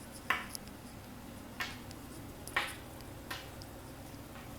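A few brief, soft scrapes and taps of a kitchen utensil against a cooking pan, four short sounds spaced out over a few seconds in an otherwise quiet kitchen.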